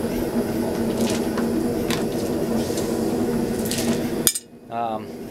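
Hot blacksmith's tongs being quenched in a bucket of water: a brief hiss about three and a half seconds in, over a steady machine hum. The sound drops out suddenly just after.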